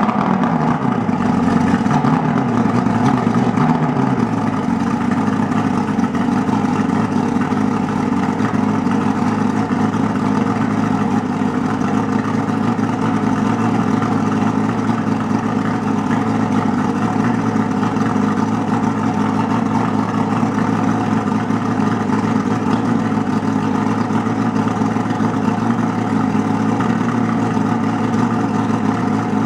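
Evinrude 250 HP V8 two-stroke outboard motor running out of the water on a flushing hose. Its speed drops over the first few seconds and then settles to a steady run.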